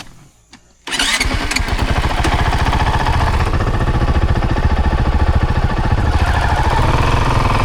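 Vehicle engine starting suddenly about a second in, then running steadily with an even, rapid firing pulse.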